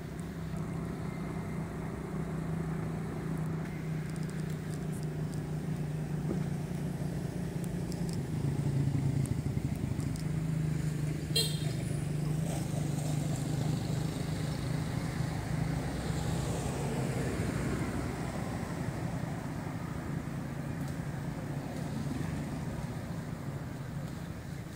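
Steady hum of a motor vehicle engine running, with traffic noise swelling louder in the middle and a single sharp click about eleven seconds in.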